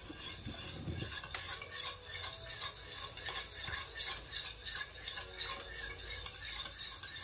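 Metal spoon stirring cold milk in a stainless steel saucepan, with a steady run of light scrapes and clinks against the pot, as cornstarch is dissolved into the milk for a béchamel.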